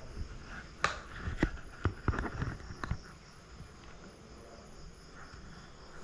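Footsteps on a floor strewn with broken tile pieces: a handful of sharp clicks and knocks in the first three seconds. Behind them runs a faint, steady chirring of insects.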